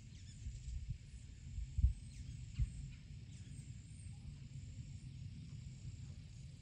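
Outdoor marsh ambience: low rumbling thumps on the microphone, two louder ones about two seconds in, over a steady high insect-like drone and a few faint, short bird chirps.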